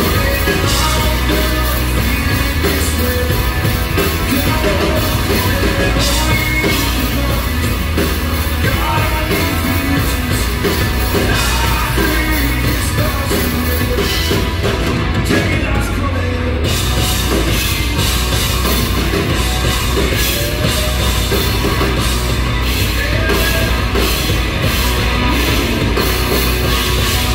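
A live rock band playing loud: a drum kit and electric bass under a man's lead vocal, which comes in at times.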